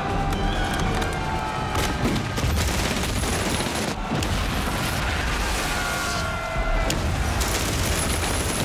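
Film battle soundtrack: many gunshots and booming explosions over a continuous din of combat, with music underneath.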